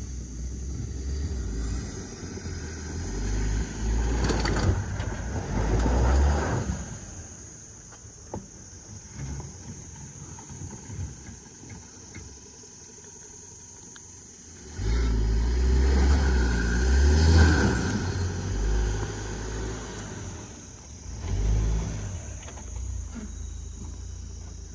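A car's engine revving hard under load as it attempts a steep hill climb, in two loud surges about four seconds in and about fifteen seconds in, with a shorter one near the end.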